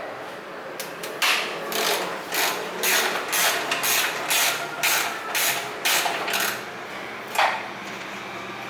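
Hand ratchet with an Allen socket loosening the exhaust mounting bolt: a series of ratcheting strokes about two a second, with a last one near the end.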